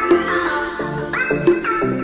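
Electronic intro music: synthesizer chords changing about twice a second, under a rising sweep.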